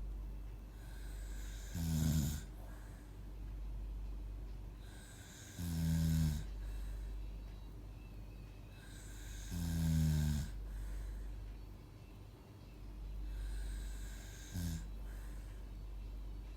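Droning snores repeating about every four seconds, four in all, each a pitched snore of under a second with a breath between them; the last is shorter. A steady low hum runs underneath.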